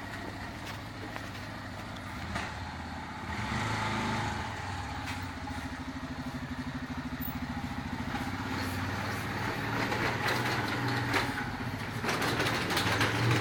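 Motorcycle engine running steadily at low revs, a regular firing pulse, picking up a little about four seconds in and again near the end.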